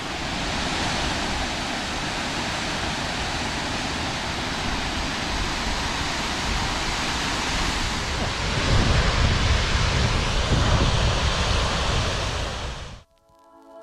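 Big Millstream Falls, a waterfall, making a steady loud rush of falling water. Wind rumbles on the microphone more heavily in the last few seconds, then the sound cuts off abruptly near the end.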